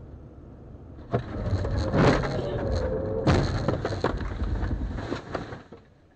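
Car collision heard through a dashcam: a sudden loud bang about a second in, then crunching and heavy knocks around two and three seconds in over a held, wavering tone. The noise dies away near the end.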